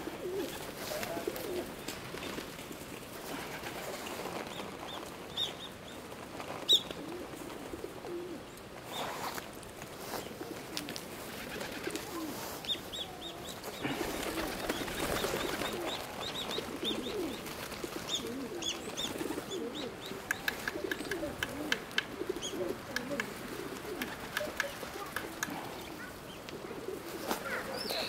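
Feral pigeons cooing in low, wavering calls, with wings flapping now and then. Short high chirps of small birds break in at intervals.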